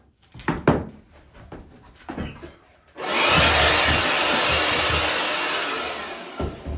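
Angle grinder with a green cutting disc cutting, starting suddenly about three seconds in and fading out near the end. A few short knocks come before it.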